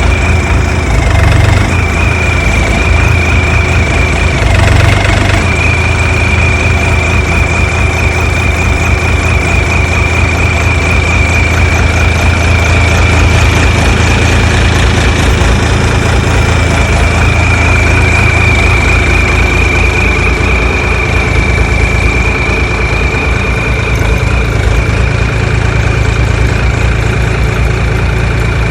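Mini excavator's water-cooled diesel engine running steadily at idle, with a steady high whine over the rumble that briefly dips twice in the first few seconds.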